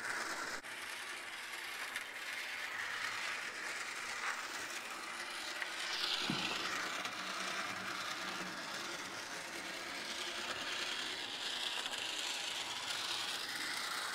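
Bachmann HO-scale DeWitt Clinton model locomotive running around a loop of sectional track: a steady light whir and rattle of its small motor and wheels on the rails that swells and eases gently as it circles, with one small knock about six seconds in.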